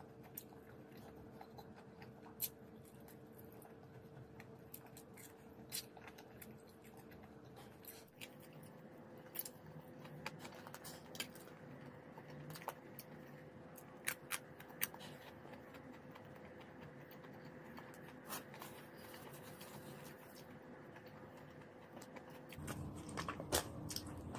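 Sparse small clicks and smacks of a person eating chicken wings with her fingers, over a faint steady hum. Near the end the handling gets louder with a few sharper clicks as a plastic drink bottle is picked up.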